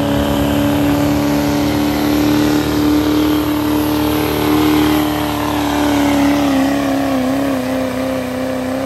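Pulling truck's engine held at full throttle under heavy load as it drags the weight sled. The note stays high and steady, then wavers up and down in pitch over the last few seconds.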